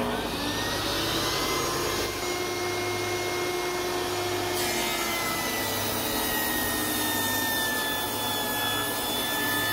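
Table saw ripping 2x4 lumber lengthwise down the middle: the blade's high whine over a steady cutting noise, the pitch rising slightly at the start and sinking a little in the second half.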